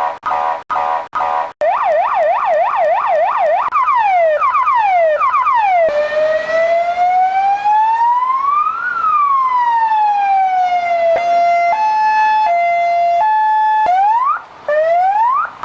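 Argentine ambulance electronic siren cycling through its tones. It runs a fast warble, then a rapid yelp of about four sweeps a second, and slows into one long wail that rises and falls. About eleven seconds in it switches to a two-tone hi-lo, and it returns to quick rising sweeps near the end.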